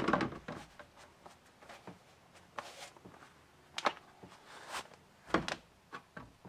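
Handling noise from a stiff plastic boat engine cover being moved and flexed on a workbench. A sharp knock right at the start, then scattered softer clicks, taps and rustles.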